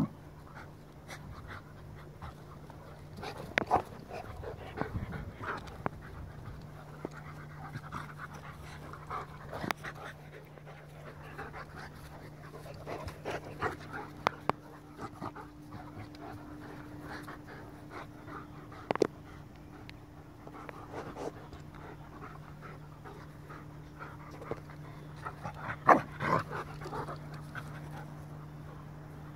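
A goldendoodle and a Bernese mountain dog puppy play-fighting, panting, with scattered sharp short sounds from the scuffle, the loudest near the end. A steady low hum runs underneath.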